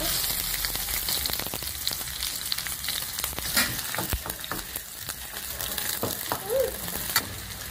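Chopped onions hitting hot oil in a steel kadai and sizzling, the tempering for a curry, with a steel ladle clicking against the pan as they are stirred. The sizzle starts as the onions go in.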